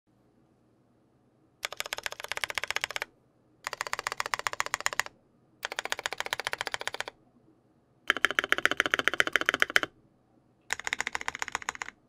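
Typing on a TX EO87 mechanical keyboard with an aluminium plate, lubed KTT Red Wine linear switches and pudding keycaps. The keystrokes come in five quick runs of rapid clicking, each lasting about one and a half seconds, with short pauses between them. The first run starts about a second and a half in.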